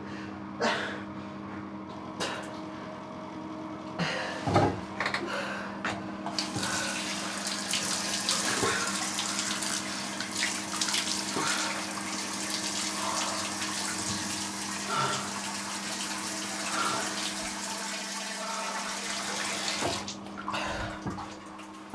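Bathroom sink tap running, a steady hiss of water that starts about six seconds in and stops near the end, with a few knocks before it and a steady low hum underneath.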